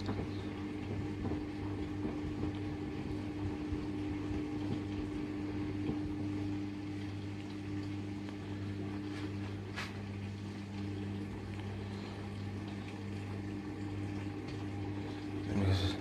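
Hoover DXOA69HC3B washing machine running mid-cycle: a steady motor hum with a higher tone that fades out just before ten seconds in, and a single short click near ten seconds.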